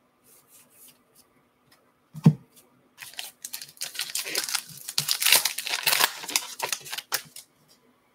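A single thump about two seconds in, then the foil wrapper of a Topps Gypsy Queen baseball card pack being torn open and crinkled for about four seconds.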